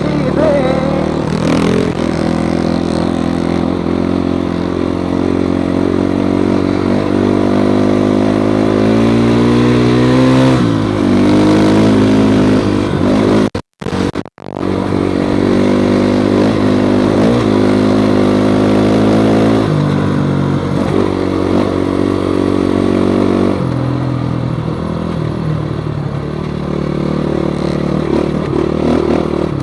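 Dirt bike engine running hard on a trail ride, its pitch climbing as it revs up through the gears and dropping as the throttle eases, over and over. The sound cuts out twice for a split second about fourteen seconds in, then the engine carries on.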